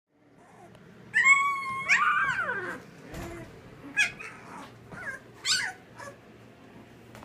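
One-week-old Labrador retriever puppy crying: a loud, high-pitched whine about a second in that holds and then falls away, followed by a few short squeaks.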